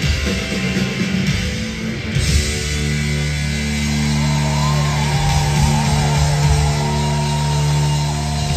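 Hard rock band playing live through a big PA: electric guitars, bass and drums. About two seconds in, the band lands on a long held chord with cymbals washing over it, and wavering high notes rise over it from about four seconds in, the typical big finish of a song.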